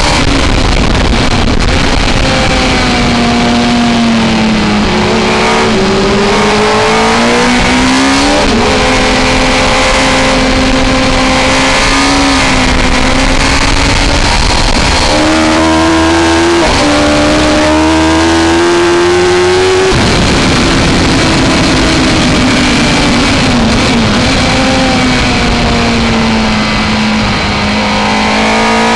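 Suzuki GSX-R1000 K3's inline-four engine at racing speed, heard from on board the bike: revs climb and step down with upshifts about 8 and 16 seconds in, fall sharply about 20 seconds in as the throttle closes, then rise again near the end. Heavy wind rush runs under it.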